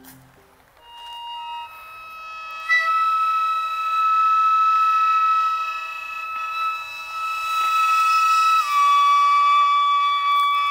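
Gagaku music: a shō mouth organ holding a sustained cluster chord while a hichiriki double-reed pipe plays a long held note. The sound starts thin about a second in and fills out a couple of seconds later. Near the end the chord shifts and the hichiriki note slides down a step.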